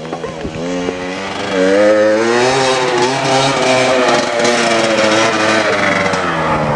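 Trail motorcycle engine coming closer on a dirt track, growing louder over the first couple of seconds and then holding, its pitch wavering up and down with the throttle.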